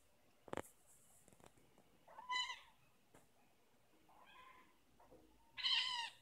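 Bengal kitten meowing three times, short high-pitched meows about two seconds apart, the last one the loudest. A single thump comes about half a second in.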